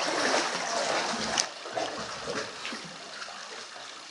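Water splashing and sloshing around a sea kayak and its paddle, loudest in the first second or so and then fading, with one sharp tap about a second and a half in.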